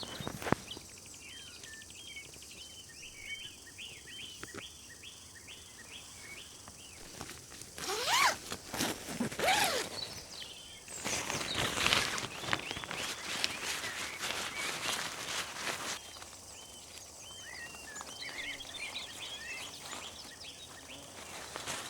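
Small birds chirping in quick repeated runs over a steady wash of flowing river water. In the middle there are louder close rustling and footstep-like handling sounds.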